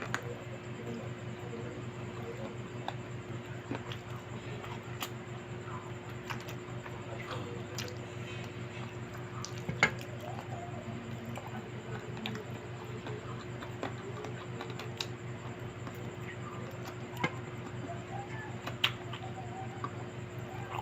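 Close-up eating sounds: chewing and wet squishing of noodles and chicken, with scattered sharp clicks, over a steady low hum.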